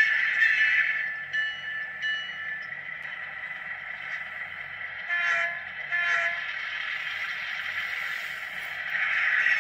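Model diesel locomotive's LokSound sound decoder sounding its horn in two short blasts about five and six seconds in, after two brief ringing tones near the start.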